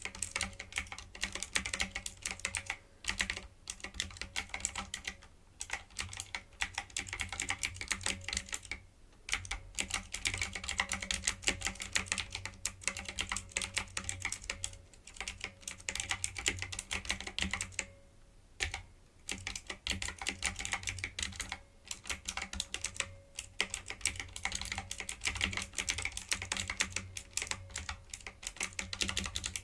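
Steady, fast typing on a typewriter-style computer keyboard: dense runs of key clicks broken by short pauses every few seconds.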